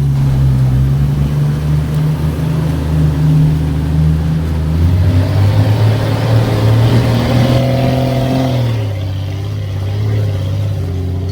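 Jeep engine running under load while crawling off-road. It gets louder and harder-working from about five seconds in, then eases off shortly before the end.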